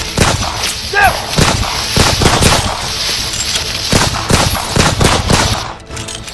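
Gunfire: many shots in quick succession with short gaps between bursts, continuing throughout.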